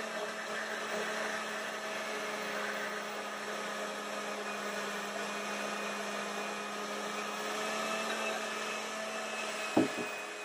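Countertop blender motor running steadily with a low hum, emulsifying eggs into mayonnaise as oil is poured in, with a brief knock near the end.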